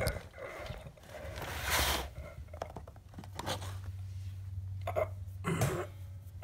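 Rustling and scraping as a hand brushes through a pot of cat grass. There is a sharp click at the very start, a longer rustle about a second and a half in, and a few short scrapes later, over a steady low hum.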